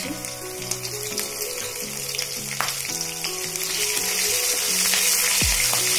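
Chopped green chillies frying in hot oil with mustard and cumin seeds in a metal kadhai, a steady sizzle that grows louder after the middle, stirred with a wooden spatula.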